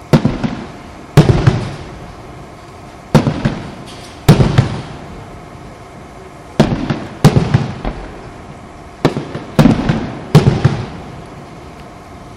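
Aerial firework shells bursting overhead: about ten sharp bangs, some single and some in quick pairs, each trailing off in a short fading rumble.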